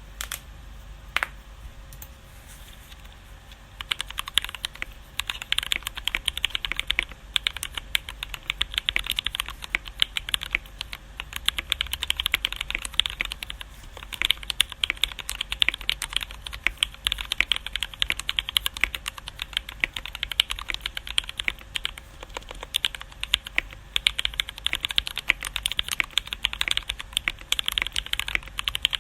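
Mechanical keyboard being typed on: lubed and filmed Feker Holy Panda tactile switches under Cherry-profile keycaps, in an aluminium Tofu60 case dampened with silicone and EVA foam. A few single keystrokes, then fast, continuous typing from about four seconds in.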